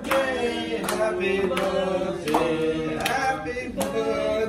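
A group of people singing a birthday song together, with hands clapping in time about every three-quarters of a second.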